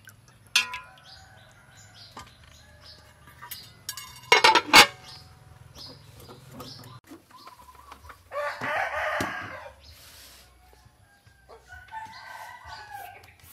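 A sharp metallic clink just after the start, then a loud metal clatter about four and a half seconds in as an aluminium lid goes onto the cooking pot. A rooster then crows once for about a second and a half, and a shorter chicken call follows near the end.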